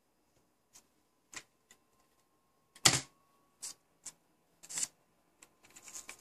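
Computer keyboard keys pressed one at a time, sharp separate clicks at uneven spacing with the loudest about three seconds in, then a quicker run of taps near the end. The keys are working the boot loader's startup-volume menu to choose the Windows partition.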